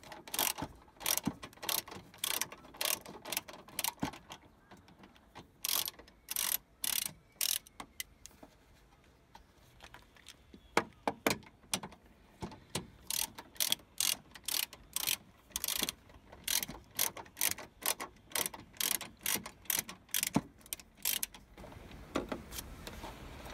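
Ratchet wrench clicking in quick strokes as the 12 mm bolts of the battery tray are loosened. There are two runs of clicks with a lull of several seconds between them.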